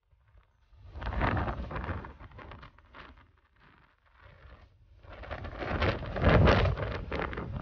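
Wind buffeting the microphone on a moving ferry's open deck, in two strong gusts: one about a second in, and a longer one from about five seconds in.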